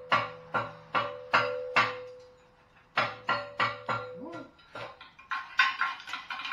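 A metal bar is jabbed repeatedly down into a catalytic converter to break up its honeycomb core, gutting the cat. Sharp metal strikes come about two a second, each leaving the pipe ringing. After a short pause there is a quicker run of rattling hits near the end.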